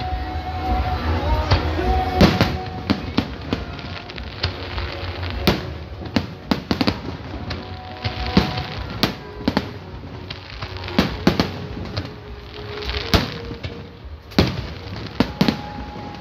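Aerial fireworks bursting: irregular sharp bangs and crackling reports, some in quick clusters, over a steady low rumble.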